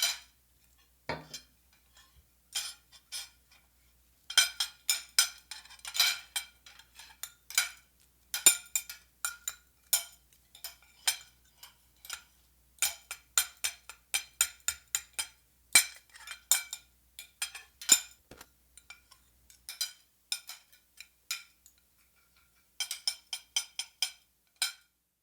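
Metal utensils clinking against glassware: irregular runs of sharp, ringing clinks with short pauses between them, stopping shortly before the end.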